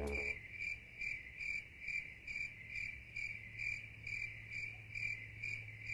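Cricket chirping, a short regular chirp about two and a half times a second, over a faint steady low hum.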